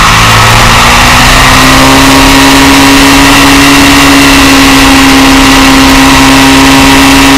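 Motorcycle engine running hard at high, steady revs on a racetrack, its note rising slightly in the first couple of seconds and then holding. Loud wind rush buffets the bike-mounted camera.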